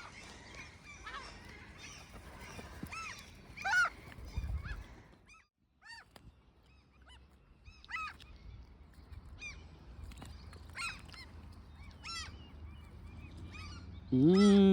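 Spring birdsong: many small songbirds chirping and singing, in short arched notes. There is a low thump about four and a half seconds in, and a loud, drawn-out call near the end.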